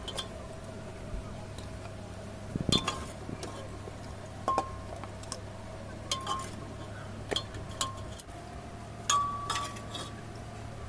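Steel ladle clinking against the rim of a pressure cooker and a serving bowl while curry is ladled out: several sharp clinks, each with a short ring, over a steady low hum.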